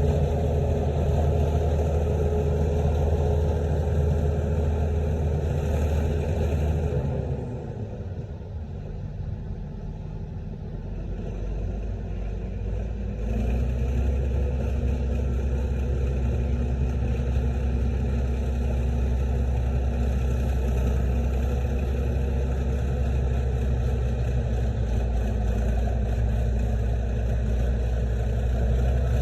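Bulldozer's diesel engine running steadily, easing off about a quarter of the way in and coming back up to steady load a few seconds later.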